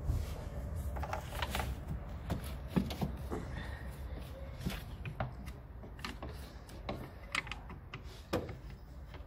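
Irregular clicks and light knocks of hoses, clips and plastic fittings being handled and worked loose in a car's engine bay, over a low steady background rumble.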